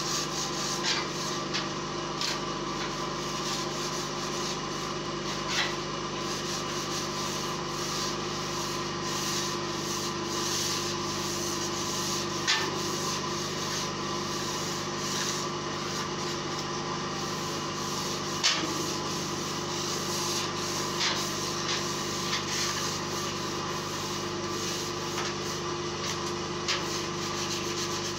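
Hand scraping and rubbing across a perforated metal table top, a steady scratchy sound with a few sharp knocks. A running machine hums steadily underneath.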